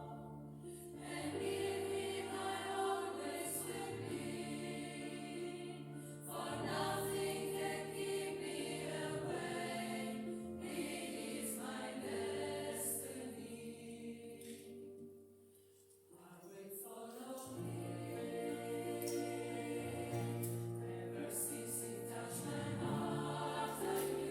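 Polyphonic choir singing sustained chords in long phrases, with a brief break about fifteen seconds in before the voices come back in.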